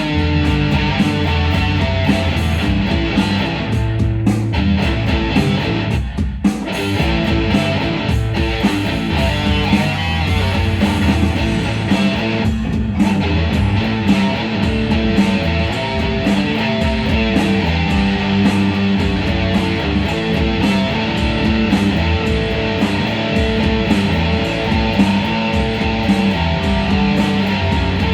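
Music led by guitar, playing continuously at a steady level.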